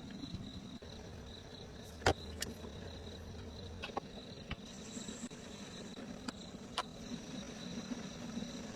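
Insects trilling steadily in a single high, even tone, joined by a second, higher trill about halfway through. Several sharp clicks stand out, the loudest about two seconds in.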